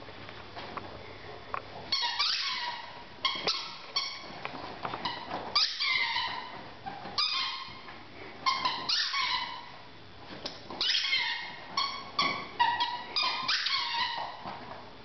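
A dog's rubber squeaky toy squeaking over and over as a German shepherd chews it: quick runs of short, high squeaks, starting about two seconds in.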